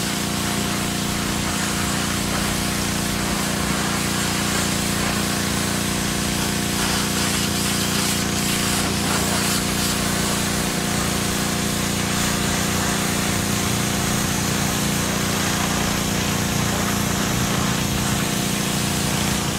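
Pressure washer running steadily: its motor and pump humming under the hiss of the water jet striking wooden deck railings.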